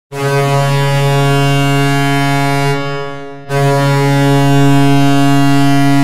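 Hockey goal horn: a low-pitched, steady air-horn blast of about three seconds, a short break, then a second long blast.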